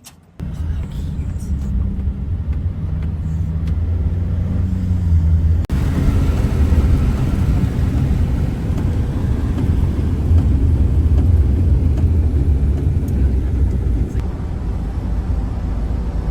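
Wind buffeting and road noise through an open car window while driving: a loud, steady low rumble that starts suddenly about half a second in, with a momentary break near six seconds in.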